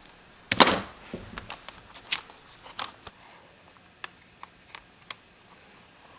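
Handwork at a bench on a bicycle saddle: a short scrape or rustle about half a second in, then scattered light clicks and taps.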